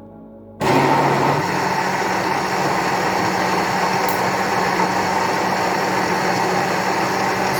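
Electric blender switched on about half a second in, its motor running steadily as it blends garlic in water.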